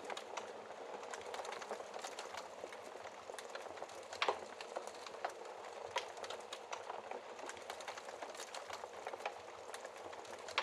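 Wood fire burning in a fireplace: a steady hiss and rustle of flames with frequent sharp crackles and pops, the loudest pop about four seconds in.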